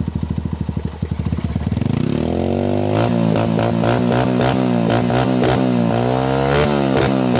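Honda TMX single-cylinder four-stroke engine through an open curve-type bullet-pipe muffler with its silencer insert removed, idling with distinct exhaust pulses. About two seconds in, the throttle opens and the revs climb, then hold higher while rising and falling with the throttle.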